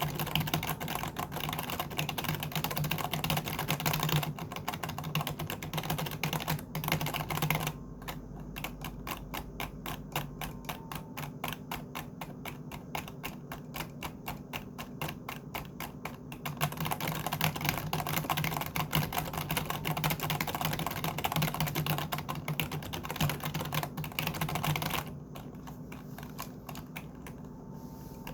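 Computer keyboard being typed on, rapid continuous keystrokes. Louder stretches of typing alternate with softer ones, dropping off around 8 s and again near the end.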